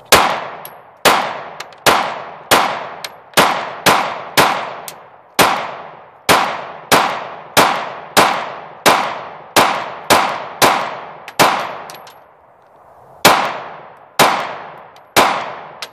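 9mm Glock pistol firing rapidly, about two shots a second, each report ringing out and dying away. It fires some twenty shots, emptying a magazine loaded with 21 rounds, with a pause of almost two seconds before the last three.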